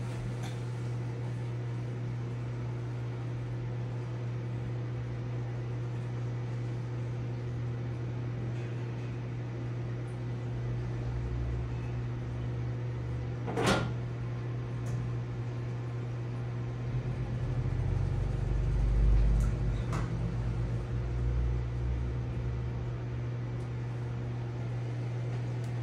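Steady low hum of running aquarium equipment. A single sharp click comes about halfway through, and a low rumble swells and fades a few seconds later.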